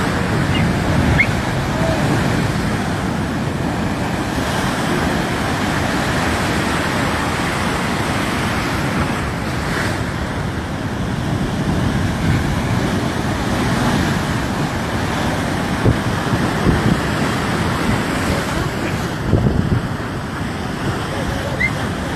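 Loud, steady rush of water, with a few short thumps in the second half.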